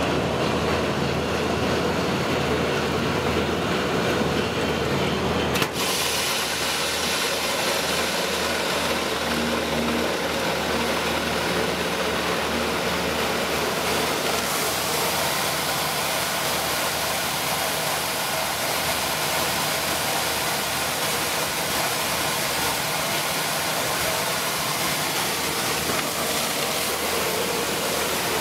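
6FW-PC2 corn peeling and milling machine running with a steady mechanical rush and hum. The sound changes abruptly, with a brief click, about six seconds in.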